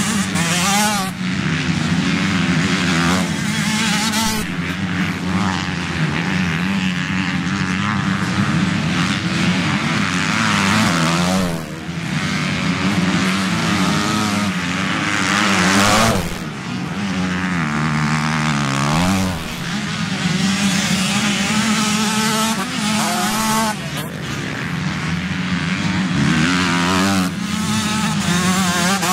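Motocross bike engines revving hard, rising and falling in pitch through the gears as several dirt bikes race past one after another on a dirt track.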